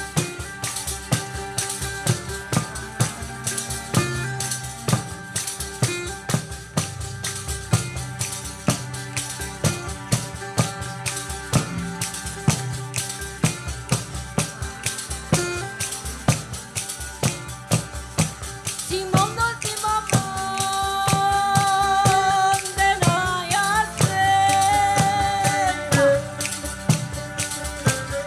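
Southern Italian folk music played live: a large frame drum beats a steady driving rhythm under a strummed mandolin-family instrument. About two-thirds of the way through, a voice comes in singing a wavering melody over it, and the music gets louder.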